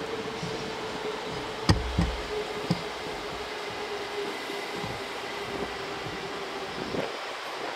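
Freight train of tank wagons rolling slowly past, with a steady hum that sinks slightly in pitch. Three sharp knocks from the wheels over rail joints come about two seconds in.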